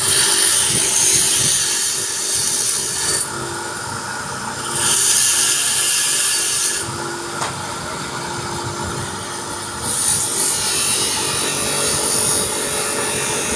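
Power tool running continuously with a steady motor hum, cutting or grinding into material in three loud, hissing stretches with quieter running between them.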